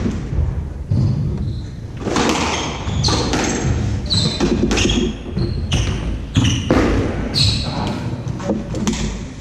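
Squash rally: a string of sharp ball strikes off rackets and the walls, about one a second from about two seconds in, in a large echoing court, with short squeaks of court shoes on the wooden floor.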